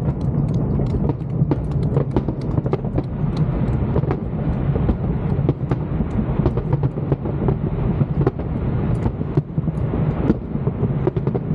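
Fireworks display: many sharp bangs and crackles close together over a constant low rumble of echoing shell bursts.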